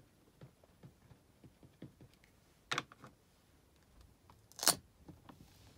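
Light repeated taps of a StazOn ink pad being dabbed onto a rubber stamp, with a sharper click nearly three seconds in and the loudest click a little under five seconds in as the pad and stamp are handled.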